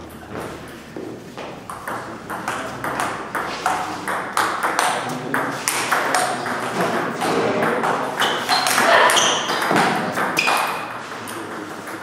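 Table tennis rally: a celluloid ball clicking off paddles and the table in quick succession, with more ball clicks from play elsewhere in the hall and background voices. The play is busiest and loudest about eight to ten seconds in.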